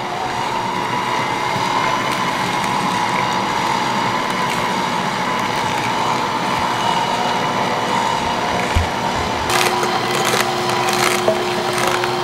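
Two cold-press slow juicers, an AMZChef horizontal masticating juicer and a Dash vertical juicer, running together with a steady motor hum as celery stalks are fed in and ground by their augers. In the last few seconds a new low steady tone joins in along with a run of sharp cracks as the celery is crushed.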